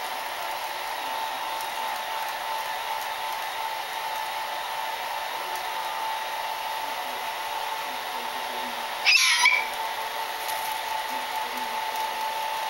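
Hair dryer running steadily, a blowing hiss with a constant motor whine, used to dry a pet after its bath. About nine seconds in comes one short, loud, high-pitched call from the animal.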